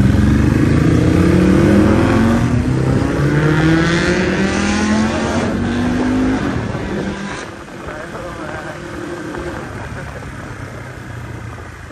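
Honda CBR600 motorcycle's inline-four engine accelerating, rising in pitch in steps as it shifts up through the gears. At about seven and a half seconds it eases off and drops to quieter running with road and wind noise.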